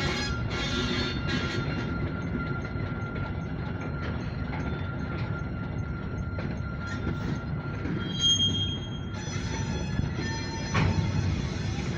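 Short grain hopper freight train rolling slowly by with a low rumble. Its wheels squeal on the rail with a thin, steady high whine, and sharper, higher squeals come in near the end.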